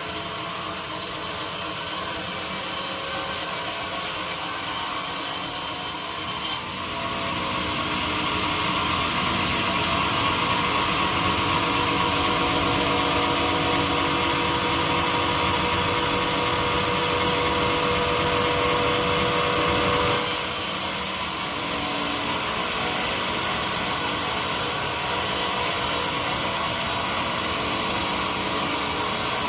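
A power tool working wood, running steadily, its sound changing abruptly about six seconds in and again about twenty seconds in.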